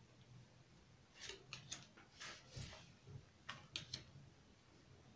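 Faint playing-card sounds as cards are laid down and slid on a tabletop: a few light snaps and short rustles in small clusters.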